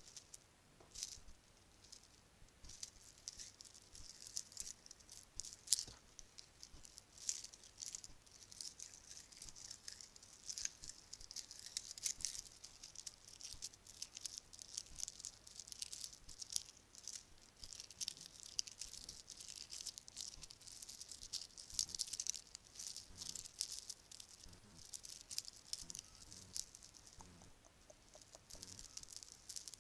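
Bracelets clinking and rattling together in a dense patter of small, light clicks, sparse at first and thickest through the middle.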